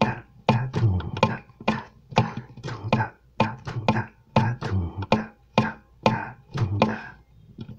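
Acoustic guitar played fingerstyle in a bossa nova rhythm on a G major seventh chord. Index, middle and ring fingers pluck the D, G and B strings together in short syncopated chords, several a second, with thumb bass notes on the sixth string under them.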